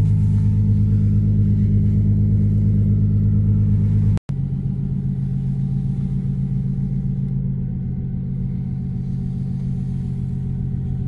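Nissan Z's V6 engine idling steadily, heard from inside the cabin. About four seconds in, the sound breaks off for an instant, then carries on a little quieter.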